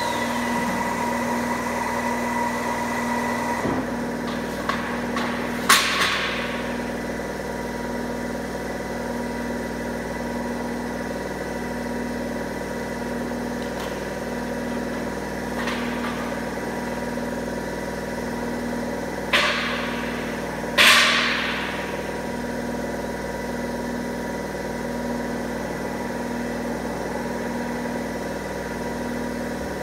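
Steady hum of an angle-bar ring bending machine running, with a shop vacuum cleaner running for the first few seconds and then cut off. Four sharp metal clanks ring out as bent steel is handled, the loudest two close together just before the two-thirds mark.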